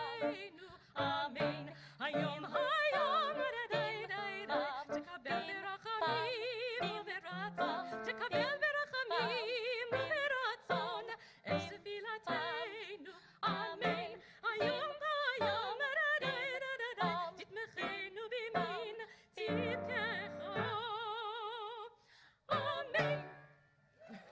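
Two women cantors singing a Hebrew High Holidays liturgical duet in a trained, operatic style with strong vibrato. The singing rises to a long held note and ends shortly before the close.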